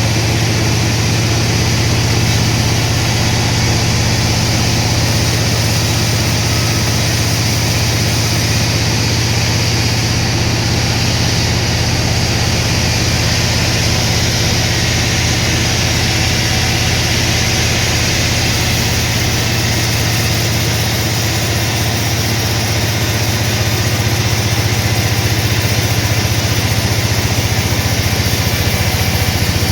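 Sawmill machinery running steadily: a constant low engine hum with an even rushing noise above it, unchanging throughout.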